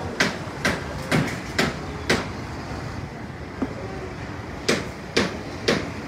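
Hammer blows on a building site, sharp knocks about two a second that stop for a couple of seconds in the middle and then start again, over a steady low rumble of machinery.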